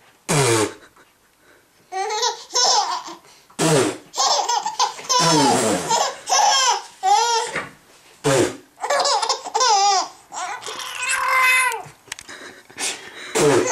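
Baby laughing in short squealing bursts, set off by an adult's sneeze-like sounds, which come sharply several times.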